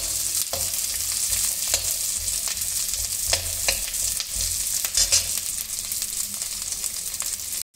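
Peeled garlic cloves sizzling in hot ghee in a metal kadai, stirred with a perforated steel ladle that scrapes and clicks against the pan now and then. The sound cuts off abruptly just before the end.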